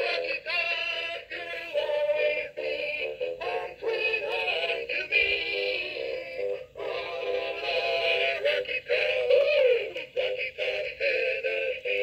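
Gemmy Tennessee Volunteers animated football-player figure playing its sung song through its small built-in speaker, pretty loud and tinny with no bass, the speaker freshly repaired.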